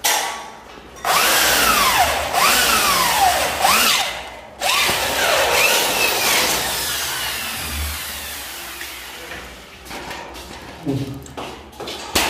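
Corded electric drill boring through galvanized steel furring channel, its pitch repeatedly dipping and recovering as the bit bites into the metal. It runs in two spells with a short stop about four and a half seconds in, the second spell fading away, and a few light metal clicks come near the end.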